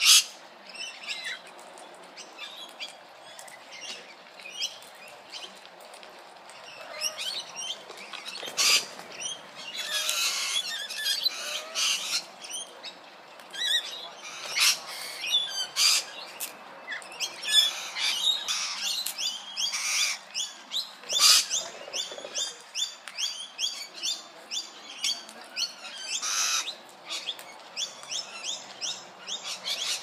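Parrots at a seed feeder, galahs among them, calling in short sharp squawks and chirps at irregular intervals, with runs of quick chirps at about three a second in the second half.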